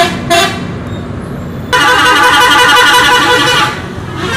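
Bus horns: two short toots near the start, then a loud multi-tone musical horn sounding a wavering, changing tune for about two seconds, the 'telolet' horn played by Indonesian buses, with a couple more toots near the end.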